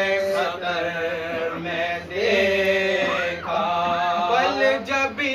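Men's voices chanting an Urdu noha, a Muharram lament, unaccompanied, drawing out long held notes that bend slowly in pitch.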